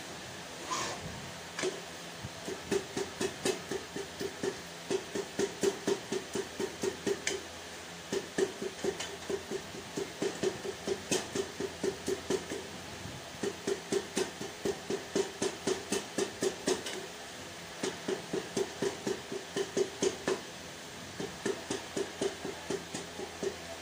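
Quick, even knocking, about four to five strokes a second, in runs of a few seconds with short pauses between them.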